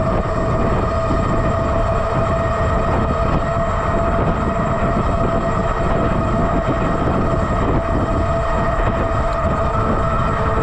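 Electric bike motor whining at a steady pitch while riding at speed, with heavy wind rumble on the microphone.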